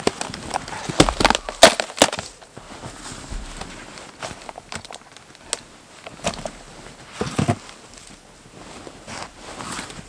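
Snow crunching and gear rustling and knocking as someone kneels in snow and handles a loaded sled. A cluster of sharp crackles and knocks comes about a second in, then scattered clicks.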